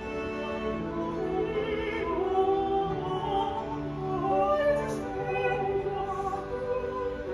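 Classical music with operatic singing, held notes with vibrato, played back through a two-channel stereo speaker system.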